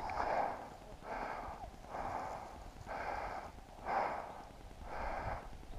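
A person breathing hard, about one breath a second.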